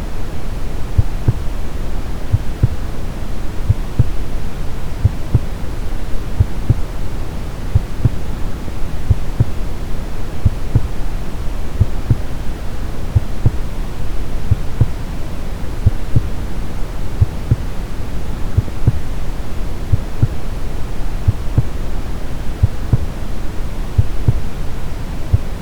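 Steady brown noise, a deep even rumbling hiss, with a regular heartbeat of soft low thumps repeating throughout.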